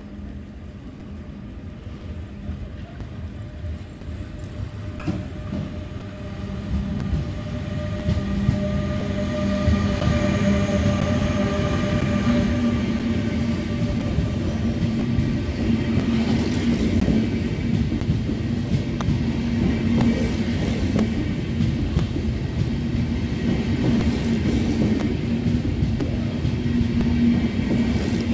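Electric train rolling close by, with wheel rumble and a hum of several steady tones from its traction equipment. It grows louder over the first ten seconds, then stays loud.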